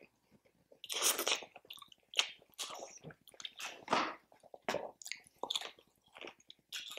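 A person chewing and biting food close to the microphone, an irregular run of mouth noises, loudest about a second in and again near four seconds.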